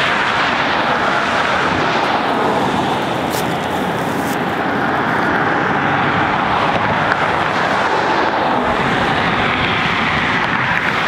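Steady, loud rushing noise of a vehicle under way, with no distinct engine note.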